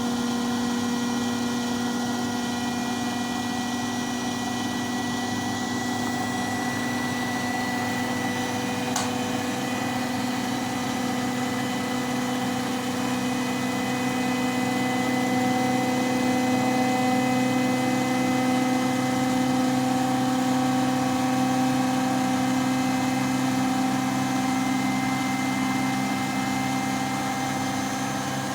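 Washing machine running with a steady, whining hum made of several tones over a noisy rush. It gets a little louder from about a third of the way in to near the end, with a single click about nine seconds in.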